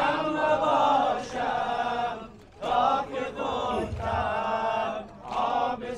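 Afghan noha, a Muharram lament, chanted by men in long, drawn-out sung phrases, with brief breaks about two and a half seconds and five seconds in.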